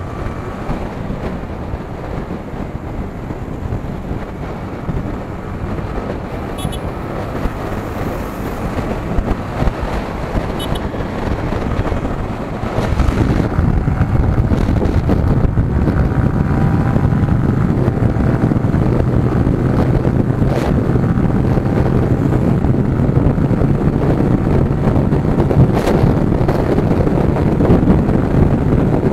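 Yamaha R15 V3's 155 cc single-cylinder engine accelerating hard through fifth and sixth gear from about 85 to 125 km/h, mixed with heavy wind noise on the microphone. The sound grows louder about halfway through.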